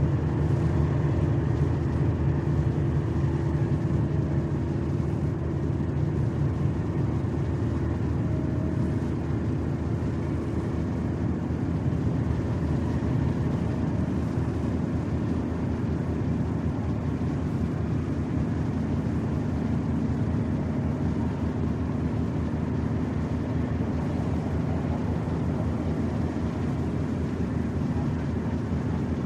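Ship's engines running with a steady low drone and rumble.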